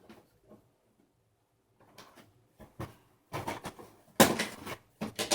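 Plastic toy parts and packaging being handled and pulled out of the box: a run of rustles, scrapes and light knocks, the loudest about four seconds in.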